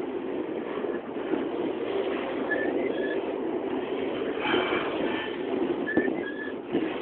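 Intermodal freight train rolling past close by: steady rumble and clatter of steel wheels on rail as container well cars go by. Pairs of short high squeaks come about two and a half seconds in and again near the end.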